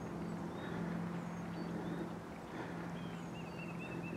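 Small birds chirping and trilling over a steady low hum from a distant diesel locomotive approaching down the line.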